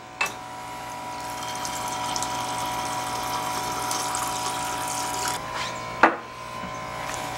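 Refrigerator door water dispenser running into a mug as compressed air pushes the water out of the fridge's water line: a steady rush with a hum behind it. There is a click as the dispenser starts, and a sharp knock about six seconds in.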